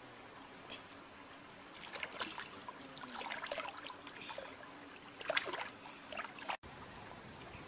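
Water splashing and sloshing in a shallow stream as a caught catfish is dipped and swished in it, in several short bursts, over a faint steady trickle of the stream.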